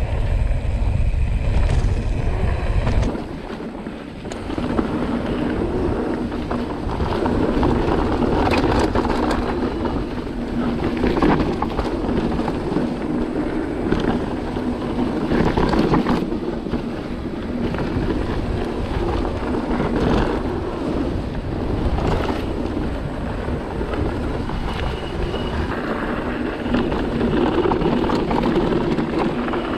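Cube Stereo 150 TM mountain bike riding down a dirt trail: steady tyre noise on the ground, with scattered knocks and rattles from the bike over bumps. Wind buffets the microphone, heaviest in the first three seconds.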